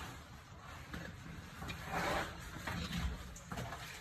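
Soft scuffs and rustles of people squeezing through a narrow rock passage, shoes and hands scraping on the rock and clothing brushing the walls; the clearest scrape comes about two seconds in.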